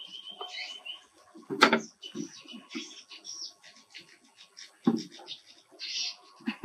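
Birds chirping in the background, broken by a few sharp knocks; the loudest comes about a second and a half in.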